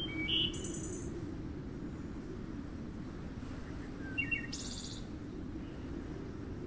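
Birds chirping: a short call near the start and another brief burst about four seconds in, over a steady low background hum.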